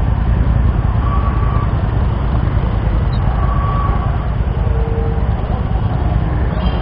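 Motorcycles and scooters riding slowly together in a large group, heard as a steady low engine rumble close to the microphone.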